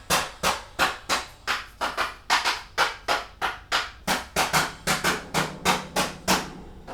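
A steady run of sharp claps, about three a second and some twenty in all, stopping shortly before the end.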